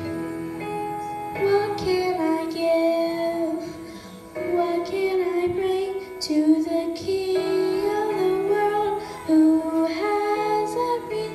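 A young girl singing a solo into a handheld microphone over sustained instrumental accompaniment, with a short break between phrases about four seconds in.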